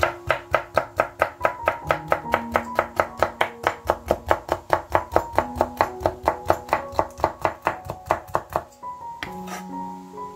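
Chef's knife chopping red bell pepper on a wooden cutting board: a fast, even run of chops, about five a second, that stops near the end with a couple of last strokes.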